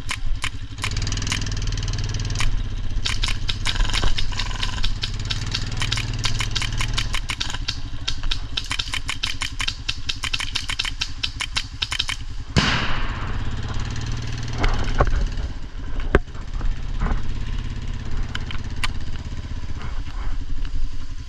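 Vehicle engine running low and steady under long, rapid trains of sharp clicks from an airsoft gun firing on full auto, for the first twelve seconds or so. About twelve seconds in comes a brief loud rush of noise, followed by a few single clicks.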